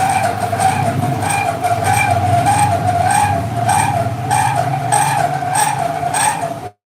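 Milling machinery running steadily: a wavering hum over a low rumble, with a regular beat a little under twice a second. The sound cuts out briefly near the end.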